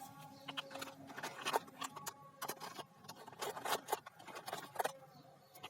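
Scattered light clicks, taps and scrapes of plastic toys being handled, quiet and irregular.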